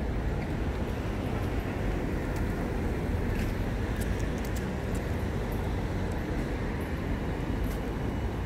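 Steady city street ambience: a constant hum of passing road traffic, with a few faint ticks.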